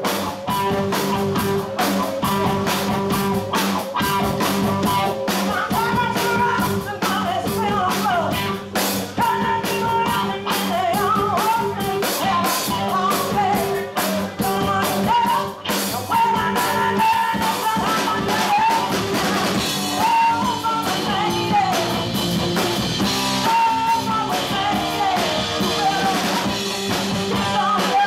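A live rock band playing: electric guitar, electric bass and a drum kit keep a steady beat, and a woman's lead vocal comes in about five seconds in.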